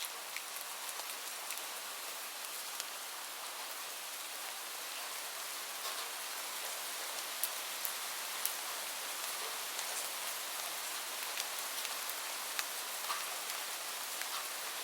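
Steady rain falling: an even hiss with scattered sharp ticks of individual drops striking close by.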